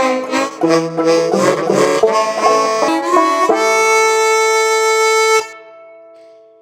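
The closing bars of a bluegrass song played on banjo and harmonica: quick plucked banjo notes, then a held harmonica chord that stops abruptly about five seconds in, leaving a few notes ringing out and fading.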